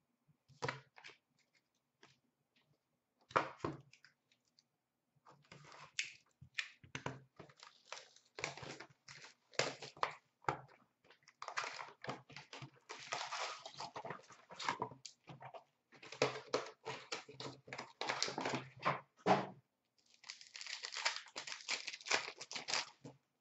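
Trading cards being shuffled and set down, with the crinkle of a shiny foil card pack wrapper being handled and torn open: irregular short rustles and clicks, running into a longer stretch of crinkling near the end.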